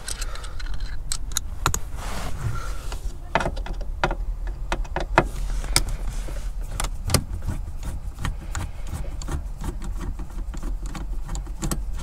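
Irregular light clicks and metallic taps of a hand screwdriver with a T20 Torx bit being handled and worked on a screw in a car's interior trim panel, over a steady low hum.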